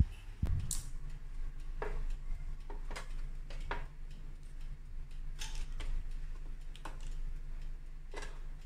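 A sharp click at the start and another about half a second in, then scattered light taps and clicks about once a second over a steady low hum: kitchen handling sounds from a toaster oven and from cookie dough balls being set down on a parchment-lined baking tray.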